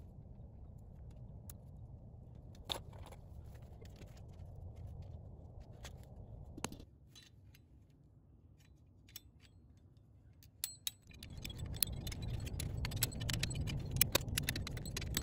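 Sharp metal clicks as fencing pliers work high-tensile fence wire. Then, about eleven seconds in, a dense run of rapid metallic clicking begins as a tightening handle ratchets an in-line wire strainer to tension the electric fence wire. A low wind rumble on the microphone runs under it.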